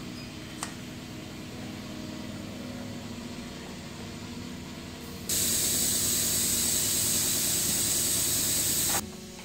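A low steady machine hum with a single click near the start, then compressed air hissing loudly and evenly for about four seconds before cutting off abruptly, at a tyre changer.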